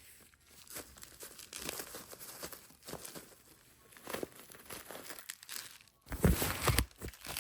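Packaging being crinkled and torn by hand while a perfume box is unwrapped, a run of small crackles with a louder rustle and bump about six seconds in.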